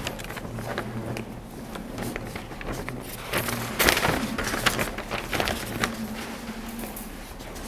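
Scattered light clicks, knocks and rustles of handling, the loudest about four seconds in, over a faint steady low hum.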